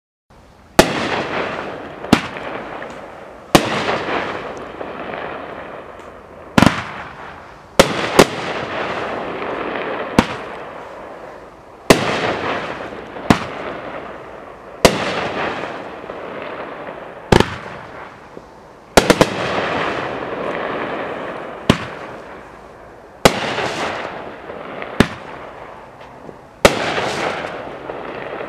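A 20-shot 500-gram fireworks cake firing in sequence: a sharp report every one to two seconds, sometimes two in quick succession, each followed by a crackling hiss from the shot's lace finish that fades before the next.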